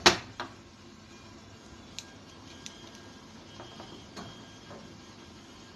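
A sharp knock right at the start, then a few faint, scattered clicks of a screwdriver working the screws along the metal side panel of a water purifier cabinet.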